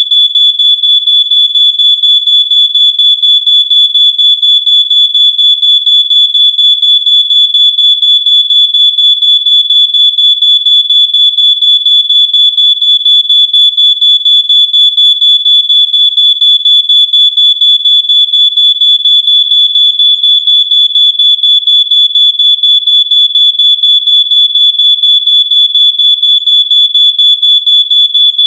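Smoke alarm sounding its full alarm: a loud, high-pitched electronic beep pulsing rapidly, several times a second, without letup.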